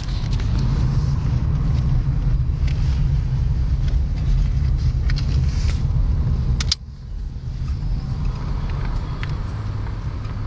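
Steady low rumble of a car driving, with a few light clicks; the rumble drops suddenly about seven seconds in, then builds back up.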